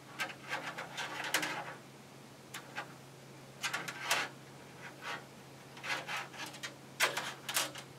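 4 mm braided cable sleeving rustling and scratching in short, irregular strokes as it is bunched up and pushed along thin LED wires, over a steady low hum.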